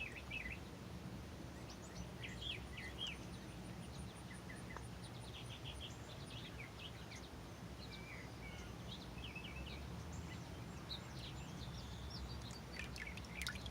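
Small birds chirping and calling here and there over a steady low background hum, with a fast, even run of high ticks for a few seconds early on.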